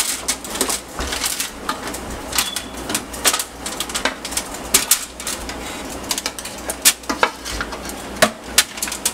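Chopped vegetables being scraped with a large spoon out of a mixing bowl onto a foil-lined baking pan: irregular clatter and scraping of spoon against bowl, with pieces dropping onto the crinkling foil.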